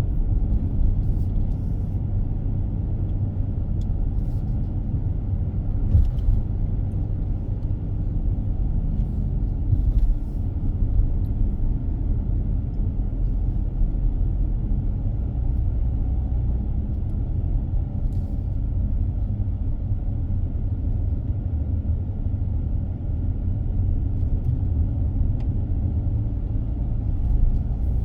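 A car driving along a road: a steady low rumble of engine and tyre noise, with a few faint brief ticks and knocks.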